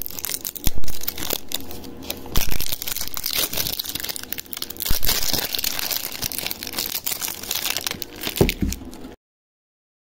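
Clear plastic wrapping crinkling and tearing as it is pulled off a small canvas, a dense run of crackles and snaps. It stops abruptly about nine seconds in.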